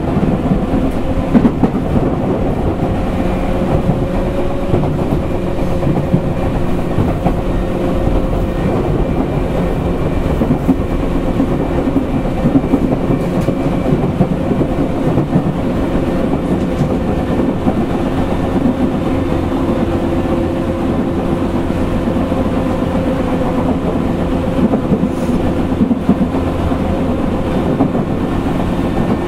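Running noise inside a motor car of a Tokyu 8500 series electric train at speed: a steady traction motor and gear hum over the rumble of the wheels, with scattered clacks as the wheels cross rail joints.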